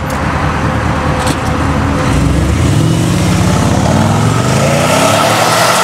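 Porsche Cayenne SUV engine running, then revving up in a rising pitch from about two seconds in as the car accelerates away.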